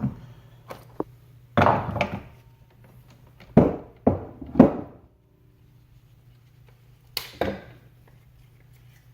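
Hard objects being handled and knocked on a work surface, a clatter followed by three quick knocks and then a pair near the end, over a steady low hum.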